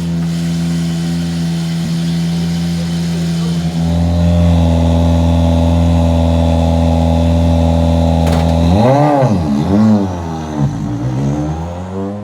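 Rally car engine running at a steady held pitch that steps up about four seconds in, then revved in a quick series of rising and falling blips for the last few seconds before the sound drops away.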